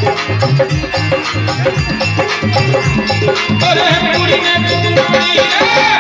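Music with a fast, steady percussion beat; a wavering melody line becomes prominent about halfway through.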